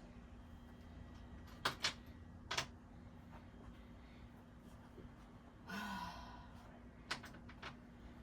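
A few sharp clicks and knocks, with a short pitched sound about six seconds in, over a faint steady hum.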